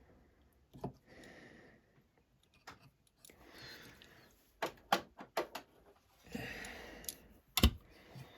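Small clicks and taps of metal tools and pieces being handled at a jeweller's bench: a quick run of clicks mid-way and a louder knock near the end, with softer handling noise in between.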